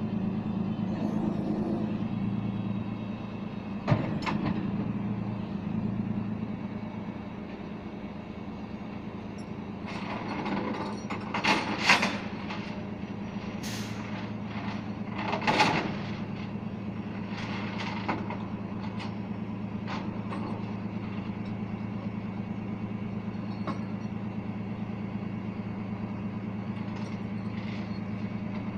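Tow truck's engine idling steadily, with a sharp knock about four seconds in and a run of short, louder bursts of clatter and hiss between about ten and sixteen seconds in, as the truck's gear is worked.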